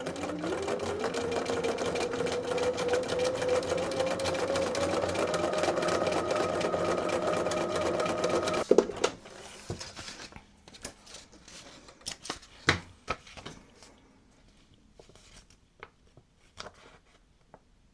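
Sewing machine running fast for free-motion stitching on paper, with a free motion quilting foot and the feed dogs dropped. Its motor whine rises slightly in pitch and stops suddenly about nine seconds in, followed by a few scattered clicks and taps.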